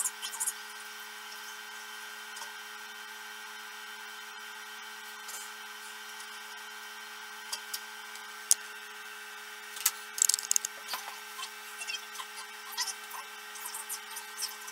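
Scattered small clicks, snaps and rustles of wires and plastic plug connectors being handled, over a steady hum. There is a sharp snap about eight and a half seconds in and a quick cluster of clicks around ten seconds.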